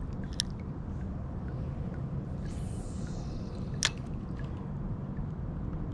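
Water dripping and splashing around a kayak, with two sharp clicks and a brief splash about halfway through, over a steady low rumble.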